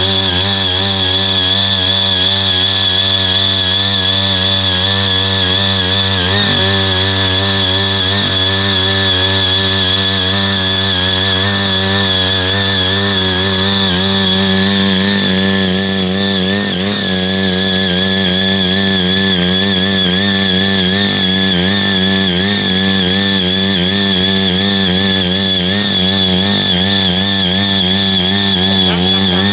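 Small engine of a CY80 foldable mini power tiller running steadily as its rotary tilling blades work the soil, the engine note wavering slightly up and down under the changing load.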